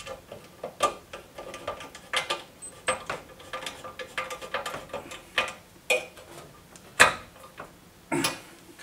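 Metal TV-mount bracket parts and screws clicking and clinking as a bracket is fitted and screwed onto the back of a television: irregular small clicks throughout, with a louder knock about seven seconds in.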